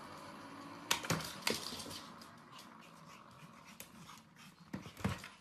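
A small dog playing with an automatic ball-launcher toy and its small ball on a hard wooden floor: two sharp knocks about a second in, scattered lighter clicks after them, and a couple of duller thumps near the end.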